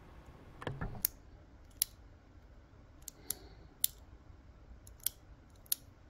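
SMK JB52 push-button latching power switch clicking as its spring-loaded plunger is pressed to latch and then released, repeatedly: a string of short, sharp clicks, several in quick pairs.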